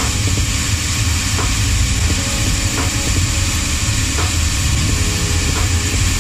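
Shoe finishing machine's sanding wheel running steadily as the edge of a cut insole is pressed against it and sanded to shape.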